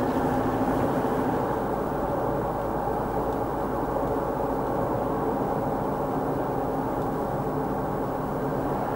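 Steady road noise inside a car cruising on a highway: tyre rumble and engine hum, with no sudden changes.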